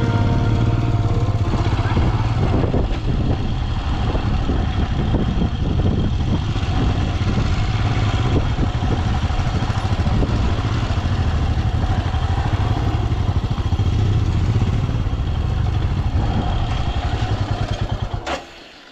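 Motorcycle running under way, a steady low engine note with irregular clattering and buffeting over it; the sound drops away near the end.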